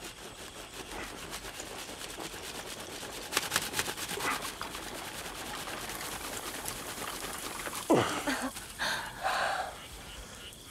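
Fast, dry rubbing and rasping with many quick ticks, as a fire is worked up by friction in the hands. About eight seconds in come a few louder rushing puffs, breath blown onto the smouldering tinder.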